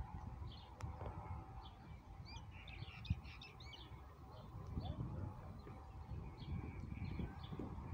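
Birds chirping: short high calls, a quick cluster of them about two to three seconds in, then scattered single chirps, over a low outdoor rumble.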